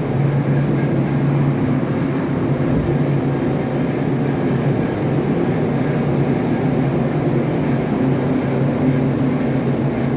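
Ship's engine-room machinery running: a loud, steady drone with a constant low hum.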